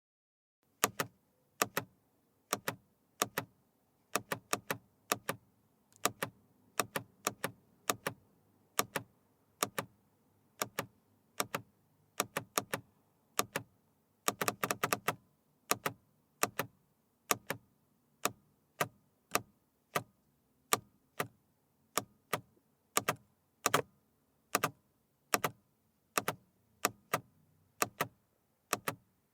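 Aluminum paddle shifter on a sports car being pressed again and again, each press a sharp click, often doubled as the paddle snaps back, with a quick run of clicks about halfway through.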